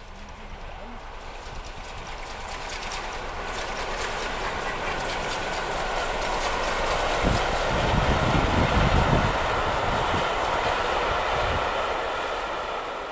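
A steam-hauled passenger train passing along the line, its noise building to a peak with a heavy rumble about two-thirds of the way through, then fading.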